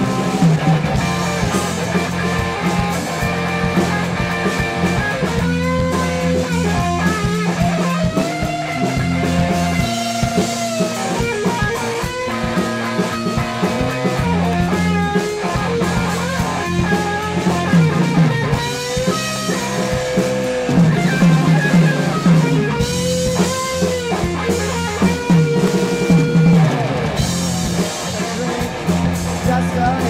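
A rock band playing live: electric guitar, bass guitar, drum kit and keyboard, in a passage with no singing.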